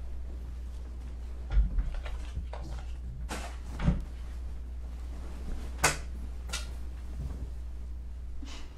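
A few knocks and thumps of movement in a room over a steady low hum: a dull thump about a second and a half in, another just before four seconds, and a sharp click near six seconds, the loudest of them.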